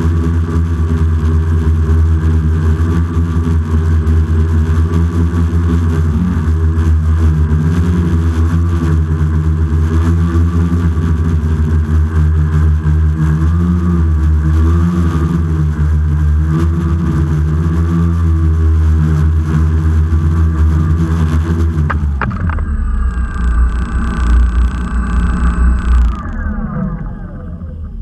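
X650F quadcopter's electric motors and propellers running in hover: a steady buzzing hum whose pitch wavers slightly as the throttle is corrected. About 22 seconds in, as it sets down on the floor, the hum drops and falls in pitch as the motors slow.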